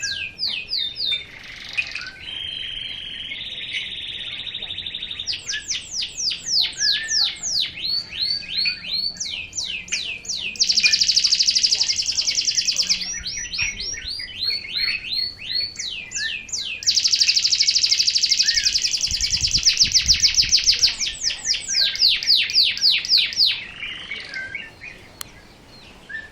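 Local canary singing in fast runs of down-sweeping whistled notes, with a steady trill early on and two loud, dense trills of about two seconds each, a little before the middle and again about two-thirds through. These are the 'tembakan' bursts that canary keepers prize.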